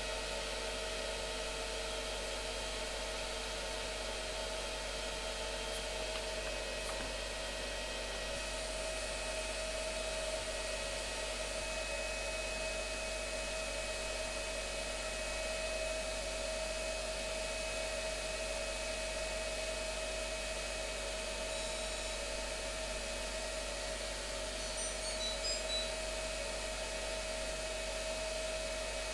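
Whirlpool FSCR 80415 front-loading washing machine running with a steady whirr and a constant whine, as of its motor and drum turning at a steady speed.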